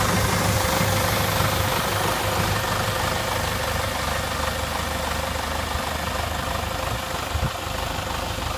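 Case A336BD six-cylinder diesel engine of a 1980 Case W14H wheel loader idling steadily, with a steady tone over the engine note. There is a brief knock near the end.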